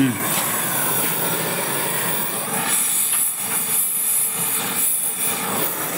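Gas welding torch flame hissing steadily as it heats steel and melts in a filler rod, the hiss sharper and louder for a couple of seconds in the middle.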